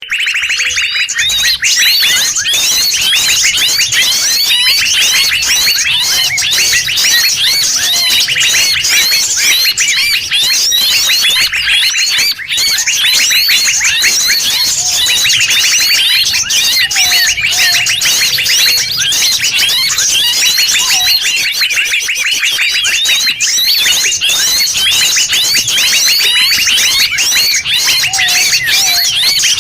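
Dense, continuous chorus of many wild songbirds calling over one another in fast, high-pitched chirps and trills, with a few lower whistled notes now and then. It is a mixed bird-lure recording of several jungle species, made to draw wild birds in.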